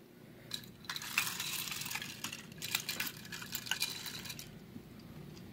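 Close rustling with many small clicks and clatters, as things are handled near the microphone, from about half a second in until near the end.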